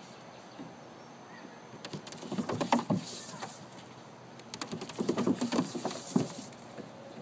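A small dog's paws scrabbling on a plastic playground slide: two bursts of quick, irregular scratching and patter, about two seconds in and again about five seconds in, as it climbs.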